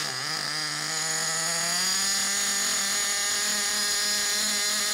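Tiny 3.5 cc two-stroke nitro glow engine running on its own after being pull-started, a high, steady buzz. Its pitch dips briefly about the start, then climbs and holds.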